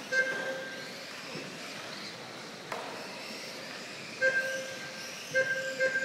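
Electric radio-controlled touring cars racing, their brushless motors whining up and down in pitch as they speed up and slow down. Short, loud, steady high tones cut through about a second in and several times near the end.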